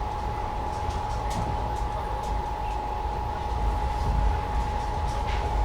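Inside a moving Indian Railways air-conditioned passenger coach: the steady low rumble of the train running, with a constant hum and a few faint clicks.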